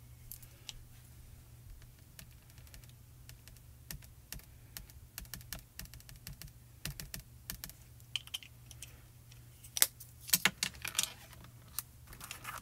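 Quick, light taps and clicks of stamping supplies being handled: small ink pads and clear acrylic stamps dabbed and set down on a stamp-positioning platform, busiest in the second half with the loudest clicks about ten seconds in.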